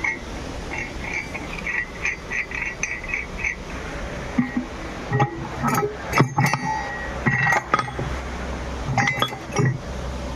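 A quick run of short high squeaks, then scattered metal clinks and knocks, some ringing briefly.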